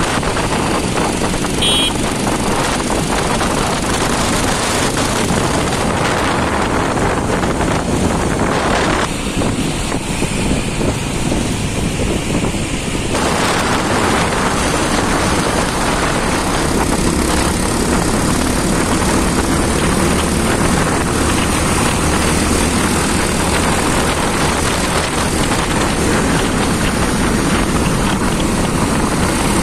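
Motorcycle ride on a Bajaj Pulsar 220F: steady wind rush over the microphone with the single-cylinder engine running underneath. A brief high tone sounds about two seconds in, and the noise thins for a few seconds near the middle.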